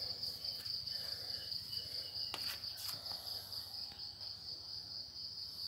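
A steady high-pitched insect trill that runs on unbroken. Two faint clicks come about halfway through.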